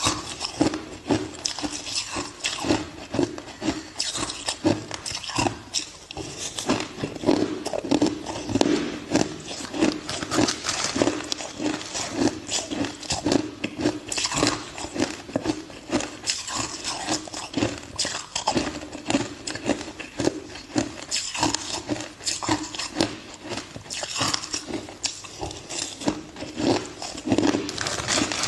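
Ice being bitten and chewed close to the microphone: a dense, unbroken run of sharp crunches and cracks.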